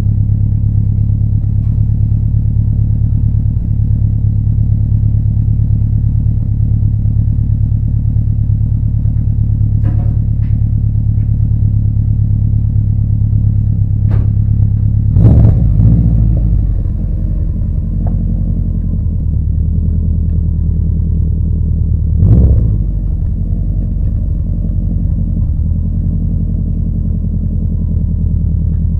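Subaru Impreza idling through a custom 3-inch exhaust with a steady low rumble, blipped twice: a longer rev about halfway through and a shorter one a few seconds later.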